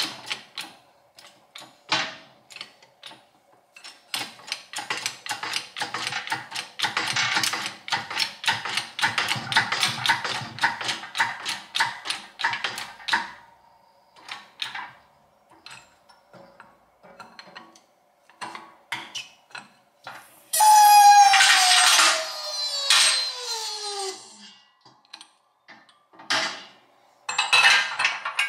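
Hand-pumped bottle jack of a 12-ton hydraulic shop press being worked to press a new steering stem into a triple clamp: quick clicking and rattling of the pump handle, then sparser clicks. About 21 seconds in, a loud squeal falls steadily in pitch for a few seconds.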